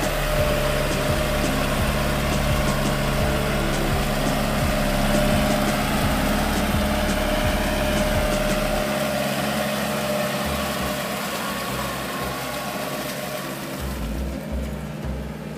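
Kubota L5018 tractor's four-cylinder diesel engine running steadily under load, pulling a rotary tiller through mud. It grows a little quieter near the end.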